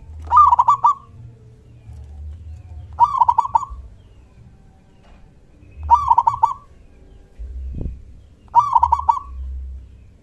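Zebra dove (local perkutut) cooing: four short phrases of quick rolling notes, about one every three seconds.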